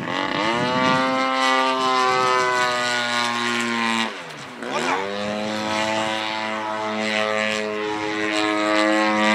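Radio-controlled model airplane's piston engine and propeller running at high power through aerobatic flight. The engine throttles back sharply about four seconds in, then opens up again to a steady high note.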